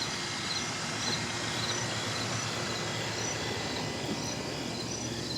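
Insects chirping outdoors: short high chirps repeating evenly about twice a second over a steady background hiss.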